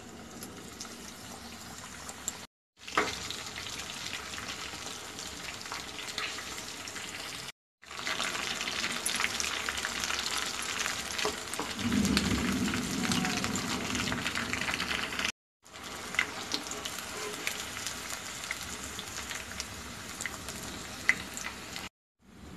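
Chicken pakoda fritters sizzling and crackling as they deep-fry in hot oil, a dense spitting crackle that is loudest in the middle and breaks off abruptly for a moment several times.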